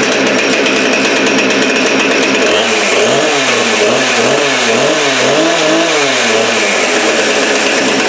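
Husqvarna Rancher 455 two-stroke chainsaw engine running steadily on a newly replaced carburetor. From a few seconds in, its pitch rises and falls about five or six times before it settles again.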